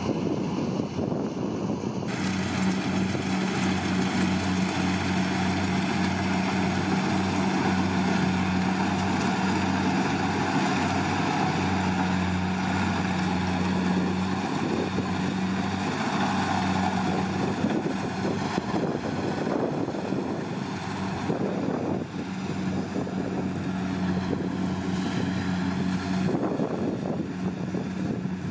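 Kubota DC70 Plus combine harvester running steadily while harvesting rice: a constant engine hum under a broad whir of its working machinery. The sound turns brighter and fuller about two seconds in, and eases back near the end.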